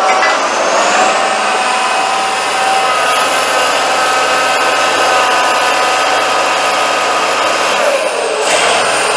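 Tatra 815 8x8 trial truck's diesel engine working hard as it crawls through deep mud. Its pitch climbs over the first few seconds with a high whine rising alongside, holds steady, drops sharply about eight seconds in, then climbs again.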